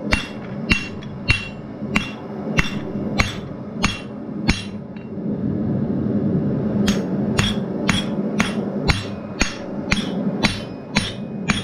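Blacksmith's hand hammer striking red-hot steel on an anvil, shaping the stem of a forged leaf. The blows come in a steady rhythm of about two a second, each with a short metallic ring. They pause for about two seconds midway, then resume slightly faster. A steady low hum runs underneath.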